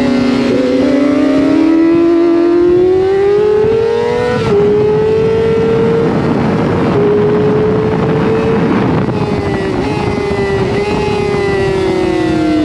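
Racing motorcycle engine running at high revs, its pitch climbing slowly under throttle, then holding and easing off. The sound breaks abruptly a couple of times.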